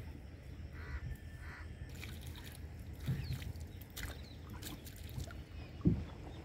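Gill net being hauled by hand over the side of a wooden boat: dripping and splashing water, with dull knocks on the hull, a louder one near the end, over a steady low rumble.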